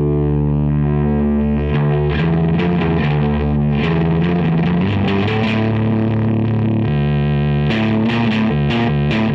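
Electric guitar through a Boss DF-2 Super Feedbacker & Distortion pedal: a distorted note sustains steadily, then picked notes are played over it from about two seconds in.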